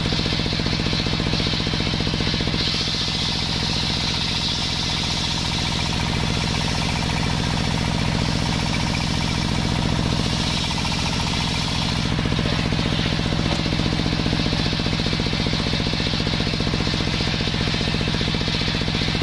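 A large circular saw bench running with a fast, steady pulse. From about three seconds in, its blade rips lengthwise through a sengon (Falcataria) beam, adding a hissing cutting sound that stops about twelve seconds in as the cut ends and the blade runs free.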